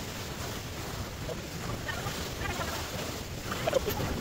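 Wind rumbling steadily on the microphone, with faint voices in the background.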